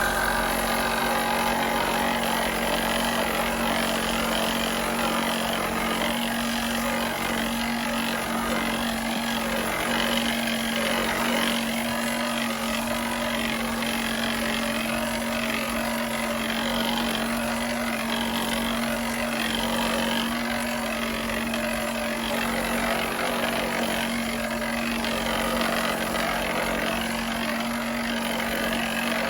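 A motor-driven cleaning machine running steadily, a constant low hum over an even hiss, as when an air conditioner is being cleaned.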